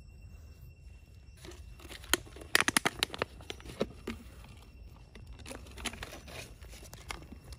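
Thin plastic water bottle crinkling and crackling in the hand: a quick run of sharp crackles about two and a half seconds in, then scattered single ones.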